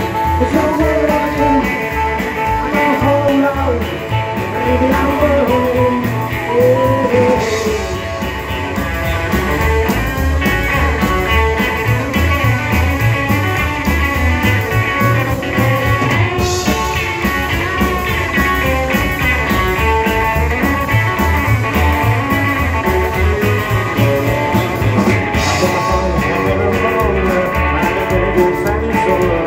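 Live rock and roll band playing a stretch without vocals: slapped upright bass and drums keeping a steady beat under acoustic and electric guitars, with a harmonica played into the microphone.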